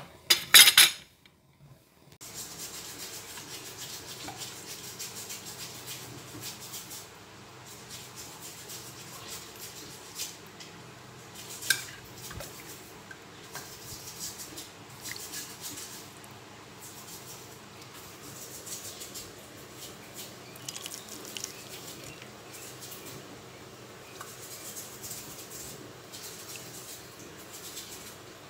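Kitchen utensils and ceramic bowls clinking and knocking as food is handled, with a loud clatter about a second in and scattered light clicks after.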